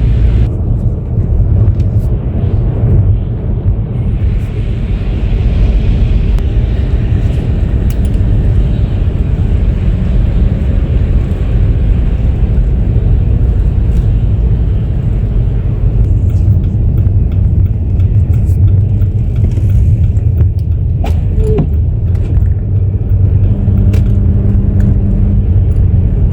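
A car driving, heard as a steady low road rumble.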